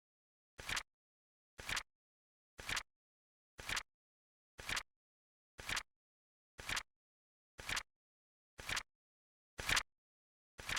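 Flip clock sound effect: a short sharp flap-click once every second, each with a slight double attack, in a steady rhythm against dead silence.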